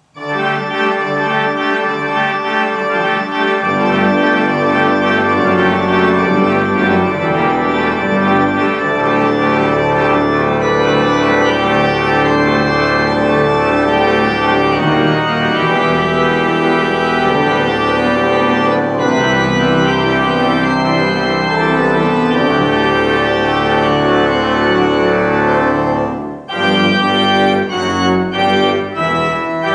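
Organ music of held chords that change every few seconds, with a short break about 26 seconds in, after which shorter, quicker chords follow.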